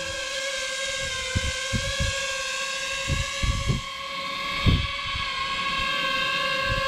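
DJI FPV drone's propellers and motors whining at a steady pitch as it flies or hovers. The pitch sags a little about four seconds in, then climbs back. Several short low thumps sound under the whine in the first five seconds.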